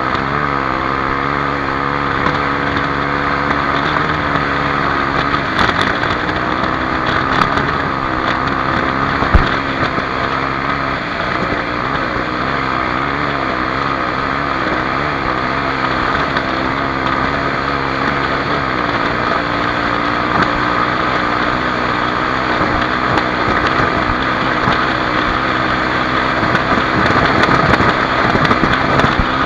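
Honda XR250 Tornado's single-cylinder four-stroke engine running under load, its pitch rising and falling as the throttle is worked, with wind noise on the microphone.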